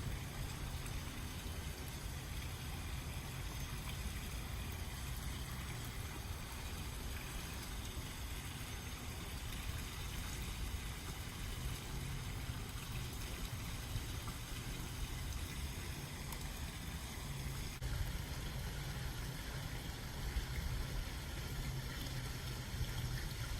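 Steady hiss with a low hum underneath, even in level throughout and with no distinct events: background noise such as room or air-handling noise.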